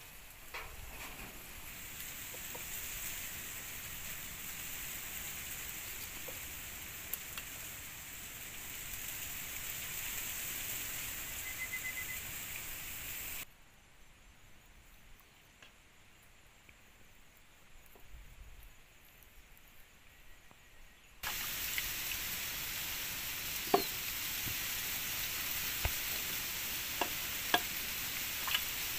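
Food sizzling as it fries in hot oil: a steady hiss with scattered pops. About halfway through it drops to a much quieter level, and about three-quarters of the way in it returns, with a few sharp crackles.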